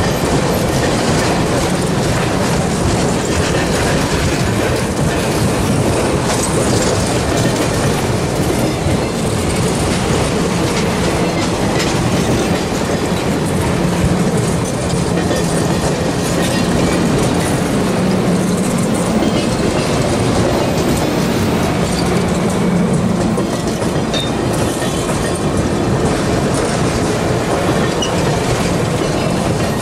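Passenger train of stainless-steel coaches rolling past at close range: a steady, loud rumble of steel wheels on the rails, with clickety-clack over the rail joints.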